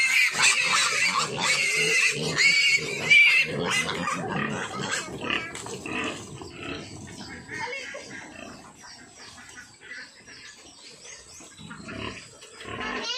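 A litter of month-old piglets squealing for feed, many high squeals crowded together and loud for the first four seconds, then quieter as they settle at the trough to eat.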